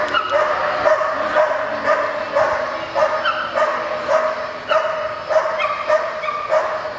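A dog barking over and over, about two sharp barks a second.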